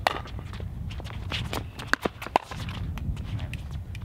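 Pickleball paddles striking a plastic pickleball in a rally: sharp pocks, one right at the start and two close together a little past halfway. Players' shoes scuff and patter on the hard court between hits, over a steady low rumble.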